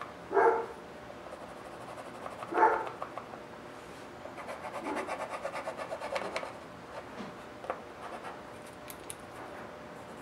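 Mechanical pencil scratching on plywood in quick back-and-forth hatching strokes, about five a second for a couple of seconds midway, with lighter strokes after. Two short, louder unidentified sounds come near the start and about two and a half seconds in.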